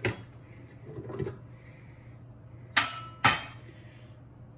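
Knocks and clacks of the inverter's lower cover panel being slid off and set down on a wooden desk: a light knock at the start, a softer one about a second in, then two sharp clacks half a second apart near three seconds, the first with a short ring.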